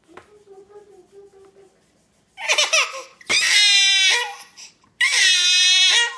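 Baby crying: a faint whimper, then three loud wailing cries starting a little over two seconds in.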